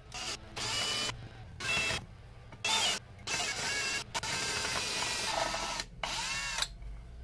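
Cordless drill boring a 2.5 mm pilot hole through a cast aluminium Tesla drive-unit housing, run in about seven short spurts that start and stop sharply. The spurts last from under half a second to nearly two seconds, with a falling whine as the motor spins down near the end.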